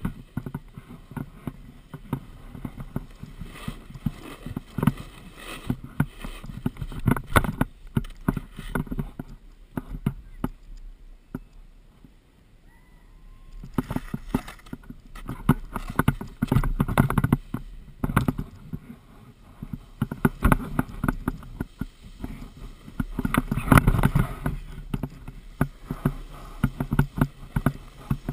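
Skis or board sliding and scraping over packed snow while riding downhill, in uneven bursts of scraping and carving. There is a quieter stretch about ten to thirteen seconds in.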